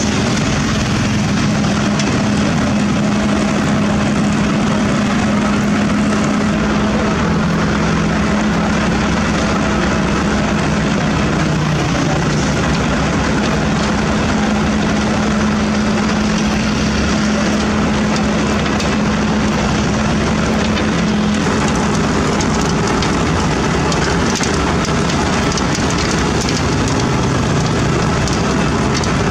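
Sakai ER501F cold milling machine at work: its diesel engine running under load with the grinding clatter of the milling drum cutting up old asphalt, a continuous loud din. A steady low engine hum sits under it and drops away about two-thirds of the way through.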